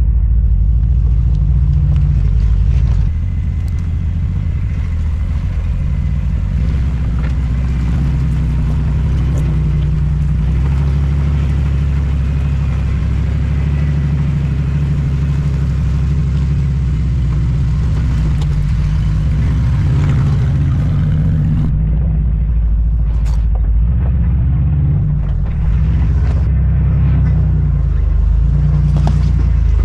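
Lifted 4x4 GMC Safari van's engine running low and steady as the van crawls a rocky off-road trail, with a few sharp knocks in the last third.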